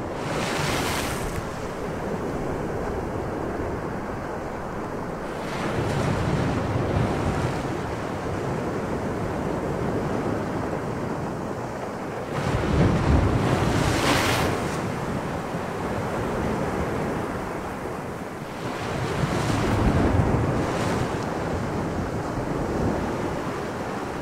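Added sound effect of ocean surf and wind: a steady wash of waves that swells and breaks louder every six or seven seconds.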